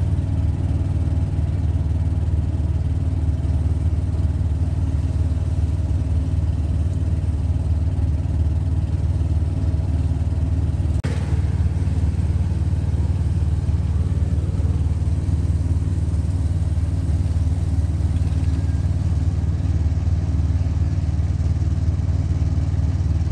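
Steady low engine and road rumble of a vehicle driving along a highway, heard from on board, with one short click about halfway through.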